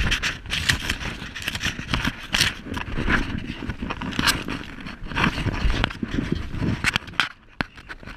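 Irregular scraping and rustling as a shooter settles his rifle and body onto a hay bale on a steel diamond-plate truck bed, going somewhat quieter near the end.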